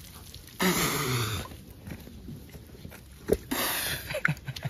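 A man's wordless yell, falling in pitch, about half a second in, then shorter grunts and shouts near the end.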